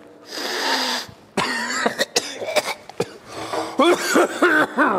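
A man's breathy hiss of air for about a second, then a run of coughs and throat-clearing noises that grow busier near the end.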